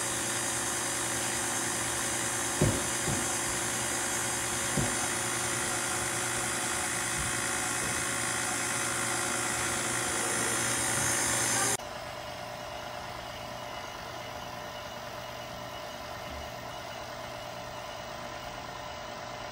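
KitchenAid stand mixer motor running steadily while the dasher churns ice cream base in the freezer bowl attachment, with two light knocks in the first few seconds. About twelve seconds in, the sound drops abruptly to a quieter, different running tone.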